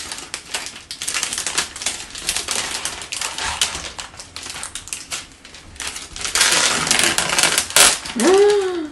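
Clear plastic orchid sleeve crinkling and crackling as it is handled and torn open, in a run of quick crackles that grows loud and continuous about six seconds in. Near the end a voice makes a short sound that rises and falls in pitch.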